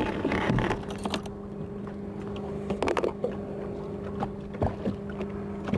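Steady low hum of the boat's motor, with scattered clicks and knocks as a catfish trotline and its tackle are hauled in by hand over the side; the sharpest knock comes about three seconds in.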